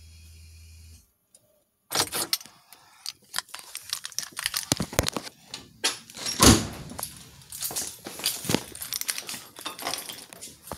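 Irregular light metallic jangling and clicking, with no steady rhythm. A low steady hum before it cuts off about a second in.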